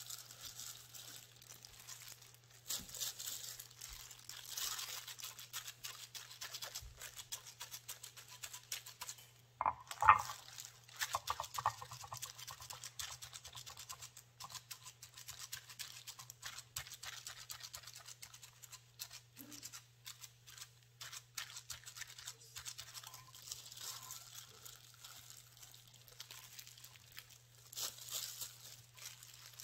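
Grated-cassava dough being pressed and spread flat on aluminium lids: dense small scratching and clicking, with a louder knock about ten seconds in, over a steady low hum.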